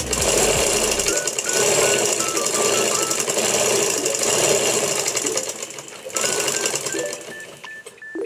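Manual sewing machine running at speed, a dense rapid rattle that eases off about six seconds in and then picks up again more weakly. A faint simple tune of single notes plays over it.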